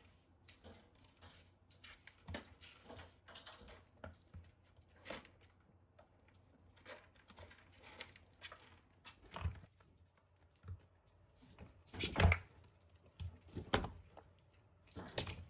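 Kittens scrambling and playing in a wire cage: irregular light clicks and taps of paws and claws, with a few louder thumps in the second half as they jump and land on the cage's upper shelf.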